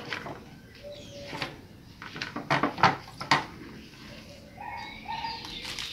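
A few sharp knocks and clatters of an enamel plate being handled with hierba santa leaves, the loudest in the middle; short pitched animal calls are heard near the start and near the end.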